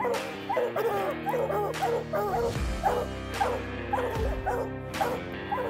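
A pack of bear hounds barking fast and overlapping at a treed bear. Background music with held notes runs under it, and a low drum beat comes in about halfway through.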